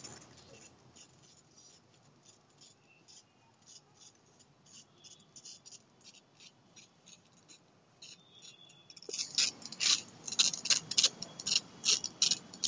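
Water from a butterfly micro-jet on a drip-irrigation line pattering onto leaves, pots and a wall as a string of irregular ticks. It is faint at first and grows louder and denser from about nine seconds in.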